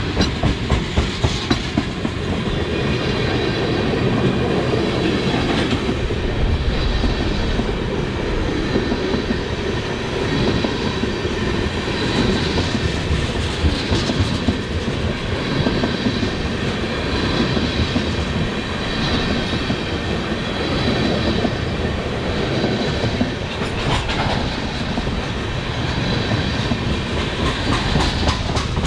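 Empty oil tank cars of a freight unit train rolling past, their wheels clicking over the rail joints in a steady rhythm.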